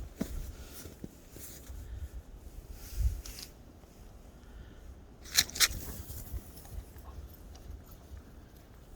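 Crunching and scraping in snow, a scatter of short crisp sounds with one louder crunching cluster about five and a half seconds in, over a low rumble.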